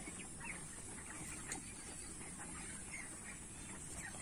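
Broiler chickens calling faintly, with scattered short high chirps and peeps throughout.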